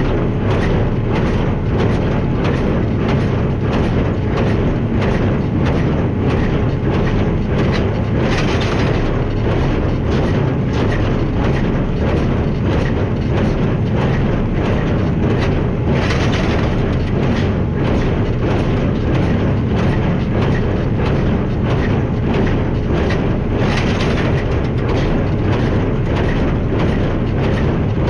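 Tractor running steadily while pulling a small square baler working straw: the baler's plunger gives a fast, regular knock over the engine drone, with a louder rush about every eight seconds.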